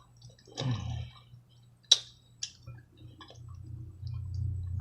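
Wet clicks and taps of hands digging through a sauce-covered seafood boil. A brief murmur of voice comes just under a second in, and a sharp click about two seconds in is the loudest sound, all over a low steady hum.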